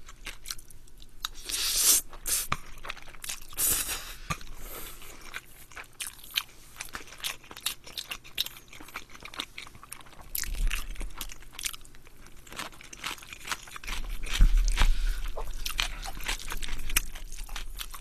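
Close-miked eating of Toowoomba spaghetti: a forkful slurped in about two seconds in, then steady wet chewing and mouth sounds with small clicks of the fork against the plastic takeout bowl. A few low bumps about ten and fourteen seconds in.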